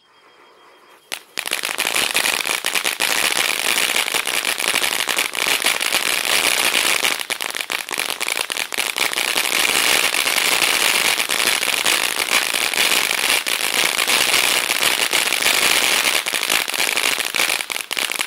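Neon Nights 200-gram consumer firework fountain burning. A faint fuse sizzle is followed, about a second in, by a loud, steady hiss thick with crackling glitter, which stops suddenly near the end.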